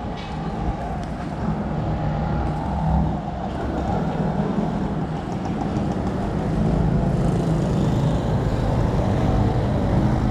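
Road traffic: motor vehicle engines running with a steady low rumble, growing a little louder about seven seconds in.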